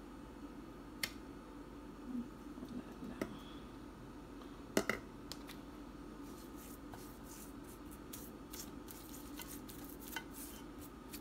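A few sharp clicks, the loudest about five seconds in, as a spoon sprinkling chicken bouillon seasoning knocks against a glass baking dish. Then soft, quick patting and rustling as hands rub the seasoning into raw chicken pieces, over a faint steady hum.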